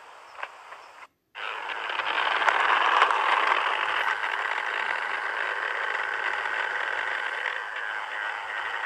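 Model Class 57 locomotive running slowly along the track as it moves up to couple to the DVT: a steady whirring hiss with a faint high whine, starting after a brief dropout about a second in.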